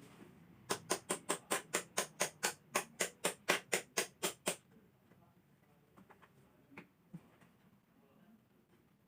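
Printer mechanism clicking rapidly and evenly, about four or five clicks a second for some four seconds, then a few faint ticks.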